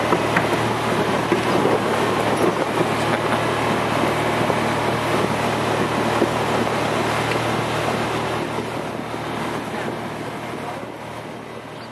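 Outboard motor of a Zodiac inflatable boat running steadily under way, with a low hum over a wash of noise, getting quieter over the last few seconds.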